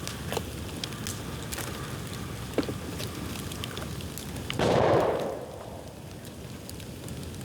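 Dry bamboo burning in an open bonfire, crackling with scattered sharp pops. About four and a half seconds in, a loud burst lasting under a second, the loudest sound, typical of a bamboo section bursting in the heat.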